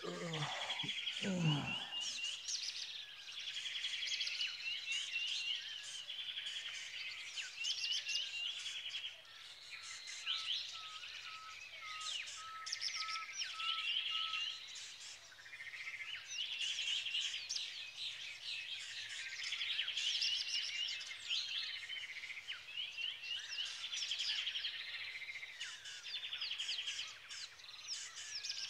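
Many small birds chirping and twittering together, a dense chorus of quick repeated chirps and trills. A man's yawn trails off in the first two seconds.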